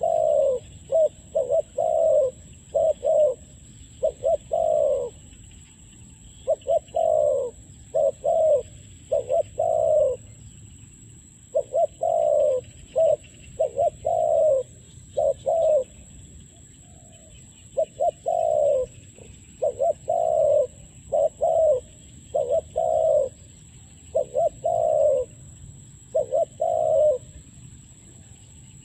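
Spotted dove cooing over and over: phrases of a few short coos ending in a longer coo, repeating about every two seconds with brief pauses between runs.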